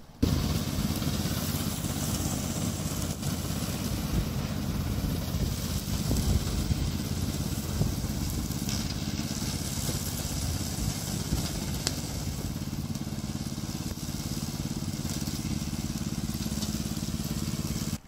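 Remote-control slope mower's Loncin 9 hp petrol engine running steadily as the tracked mower cuts through tall dry grass and weeds, with the hiss of the cutting deck over the engine drone.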